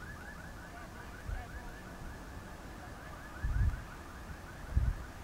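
A high, rapid chirp repeated about five times a second, stopping near the end, with two brief low rumbles about three and a half and five seconds in.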